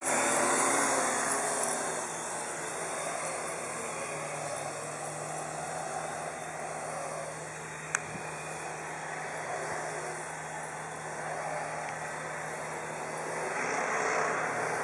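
Small remote-control helicopter's rotor and electric motor whirring steadily, louder at the start and again near the end, with one sharp click about eight seconds in.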